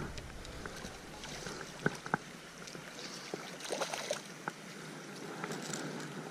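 Shallow creek running over gravel, with rustling grass and handling noises, including two sharp clicks about two seconds in.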